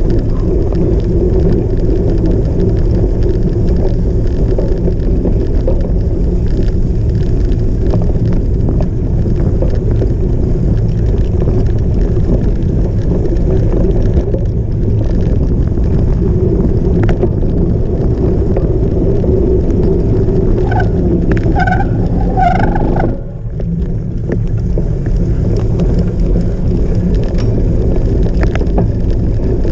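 Cyclocross bike ridden at race pace off-road: a steady, loud rumble of wind and rattling on the microphone. About 21 seconds in there is a short run of high pulsing tones, and the noise dips briefly just after.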